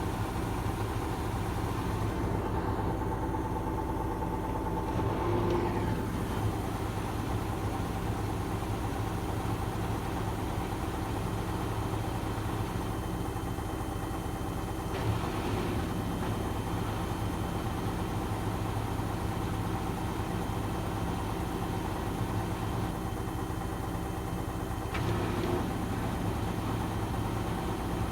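Gorenje washing machine spinning in its final spin cycle: a steady motor and drum hum with a few brief changes in tone along the way.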